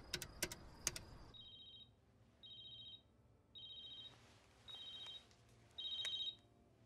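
A few sharp clicks of metal payphone keypad buttons being pressed, then a telephone ringing: five short electronic trills about a second apart, getting louder.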